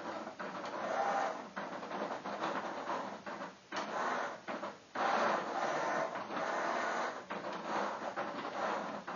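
Motor-driven magnet carriage of an MB Milton self-moving chess computer whirring under the board as it drags a piece across the squares. It runs in several stop-start spells with short pauses about three and a half and five seconds in.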